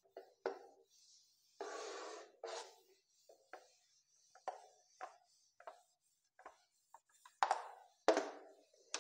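Whiteboard eraser rubbing across the board in a series of short, uneven wiping strokes, with one longer wipe about two seconds in and the loudest strokes near the end.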